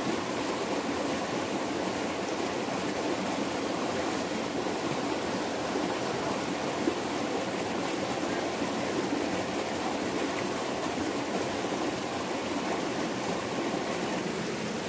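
Small forest stream running steadily over rocks with a continuous splashing rush, with a single brief tap near the middle.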